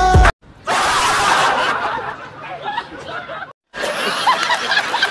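People laughing loudly. After a brief cut about three and a half seconds in, a man cackles in quick repeated bursts of laughter that rise and fall in pitch.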